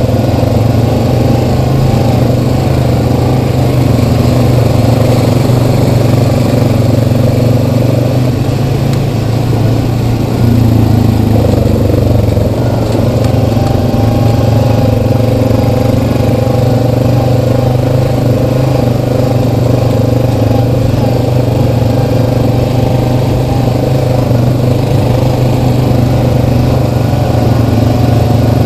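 Single-cylinder ATV engine running steadily while riding along a dirt trail. It eases off about eight seconds in and picks up again about three seconds later.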